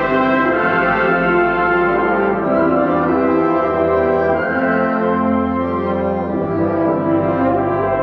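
A wind symphony playing loud, sustained chords with the brass to the fore over a deep bass line; the harmony shifts twice, about two and a half seconds in and again about six seconds in.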